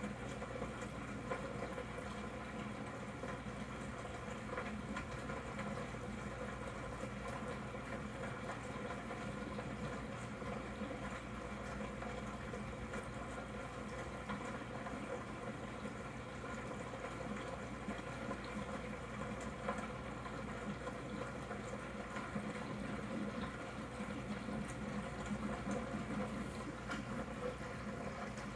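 Aquarium air bubbler running: a steady stream of air bubbles rising and popping at the water surface, with a faint steady hum underneath.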